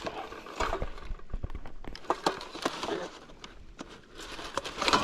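Camp plates being fetched and handled: a run of light clicks and knocks with rustling.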